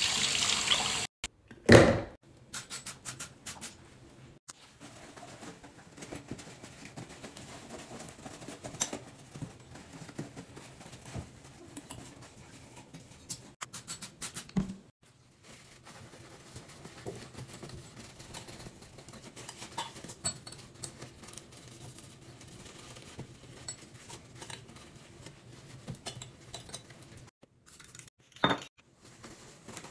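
Bathroom sink cleaning: the tap runs briefly at the start. A sharp knock follows about two seconds in, then scattered small clicks and taps of handling around the chrome faucet and basin, with a short spray from a spray bottle about halfway through.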